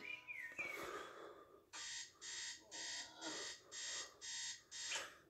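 A cartoon alarm clock ringing in six quick, even bursts, about two a second, starting a little under two seconds in, after a brief pitched sound effect. It plays through a TV's speakers and is picked up in a small room.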